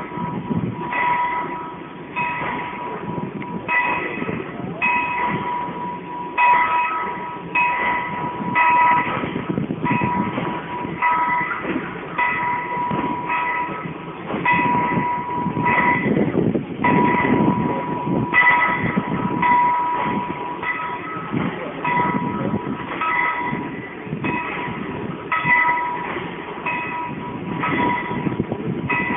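A steam locomotive being turned on a railway turntable: a continuous rumble with high ringing tones that keep breaking in and out every second or so.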